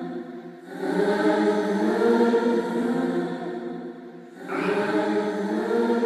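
Music: voices singing long held chords in slow swelling phrases, a new phrase rising about a second in and again about four and a half seconds in.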